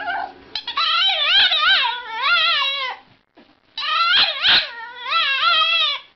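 French bulldog vocalizing in two long, drawn-out cries whose pitch wavers up and down, with a short pause between them about halfway through.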